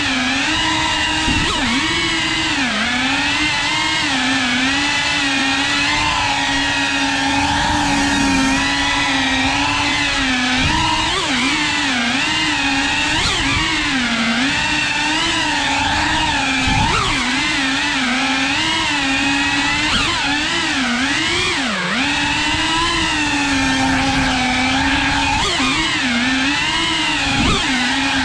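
FPV quadcopter's electric motors and propellers whining, the pitch dipping and rising again and again as the throttle changes.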